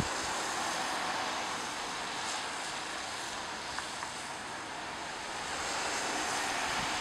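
Steady outdoor rushing noise with no distinct events. It swells up at the start, eases a little in the middle and swells again near the end.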